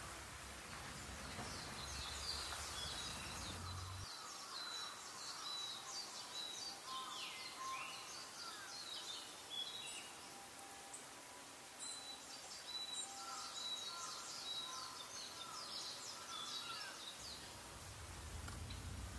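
Several small birds chirping and singing, with many short high calls scattered throughout and a falling whistled note near the middle, over a faint steady outdoor hiss.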